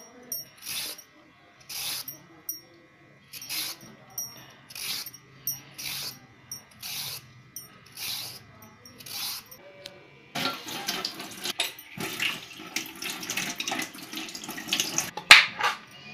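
Hand vegetable peeler scraping down a raw carrot in repeated short strokes, about one a second. After about ten seconds it gives way to a denser, louder scraping and rustling of carrot handling, with a couple of sharp knocks.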